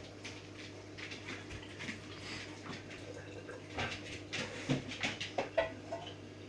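A household pet making small sounds as it moves about: scattered soft clicks and scratchy ticks that grow busier about halfway through, over a steady low hum.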